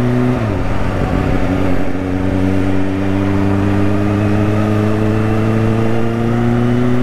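Kawasaki Ninja H2's supercharged inline-four running under the rider at low road speed. The engine note dips and breaks up briefly about half a second in, then holds steady and climbs slowly in pitch as the bike gathers speed.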